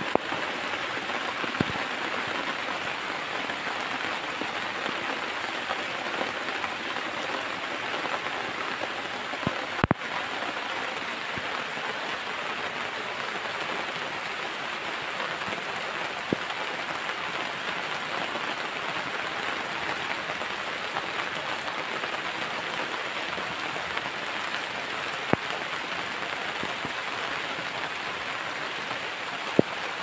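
Steady rain falling, an even hiss with a few sharp ticks scattered through it.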